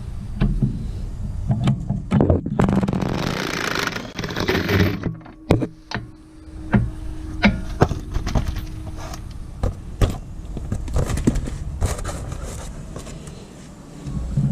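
DeWalt cordless impact wrench running a strut rod nut off in one burst of a couple of seconds, about two seconds in, followed by scattered metallic clicks and knocks of the wrench and loosened hardware.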